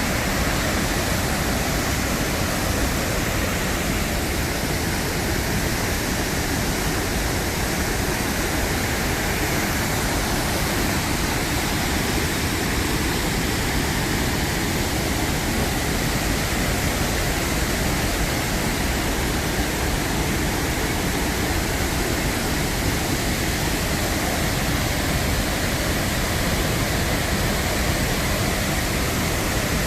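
Waterfall's rushing water: a loud, steady noise that does not change.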